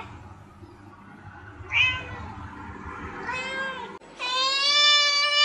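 Domestic cats meowing: two short meows, each falling away at the end, then a different cat gives one long, steady meow near the end.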